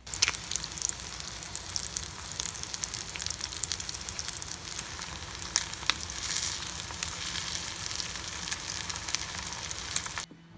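Food frying on a hot cooking surface: a steady sizzle dotted with many small crackles and pops. It starts suddenly and cuts off suddenly near the end.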